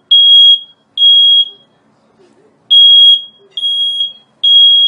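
High-pitched electronic alarm beeping: steady half-second beeps in groups of three, with a pause of about a second between groups, the three-beep pattern of a smoke alarm.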